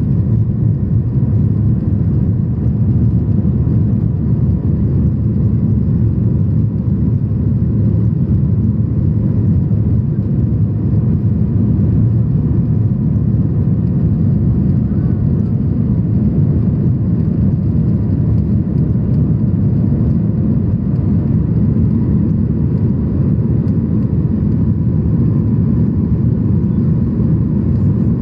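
Steady low roar of engine and airflow inside the cabin of a Boeing 737-800 climbing out after takeoff with its flaps still extended, with a faint steady whine over it.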